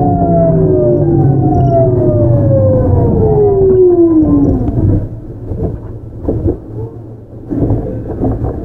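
Hitachi GTO-VVVF inverter of a Keio 8000-series electric train whining in a falling pitch as the train brakes and slows. The whine dies out about five seconds in, leaving quieter wheel and track rumble with scattered knocks.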